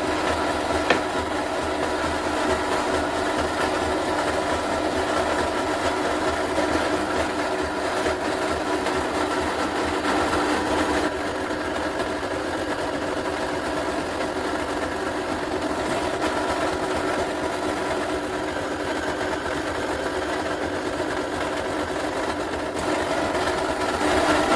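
Electric drill motor running steadily while drilling holes in a steel exhaust flange plate, with a single click about a second in.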